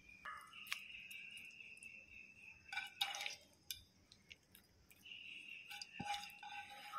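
Raw prawns tipped onto chopped tomatoes, onions and chillies in a pan, with a few light knocks and clatters of the container against the pan, the loudest about three seconds in and more near the end. A faint high steady tone comes and goes twice in the background.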